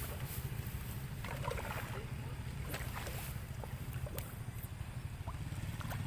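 Steady low rumble of wind buffeting the microphone outdoors, with faint voices and a few soft short knocks over it.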